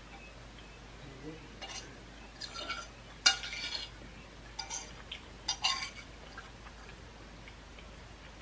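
Eating utensil scraping and clinking against a dish of food in about five separate strokes, the sharpest clink a little over three seconds in.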